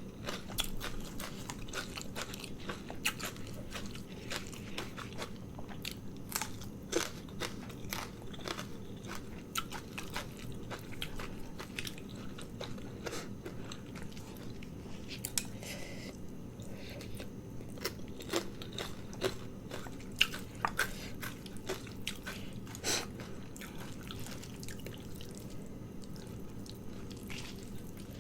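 Close-miked eating: a person biting and chewing crunchy food, with frequent irregular sharp crunches and clicks of the mouth.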